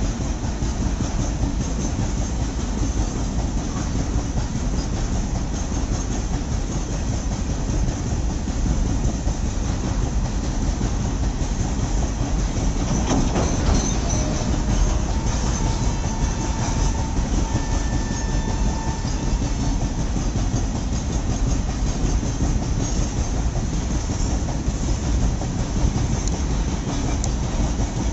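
Covered wagons of a long cement goods train rolling steadily past on the track, steel wheels running on the rails with a continuous rolling noise. Faint wheel squeal comes through for a few seconds just past the middle.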